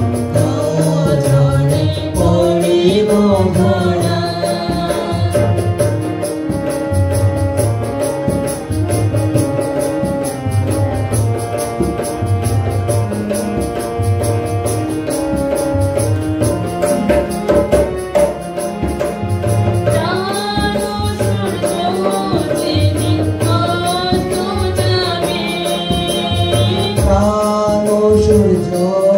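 A man and a woman singing a Bengali Christian hymn through microphones over a steady, regular drum beat.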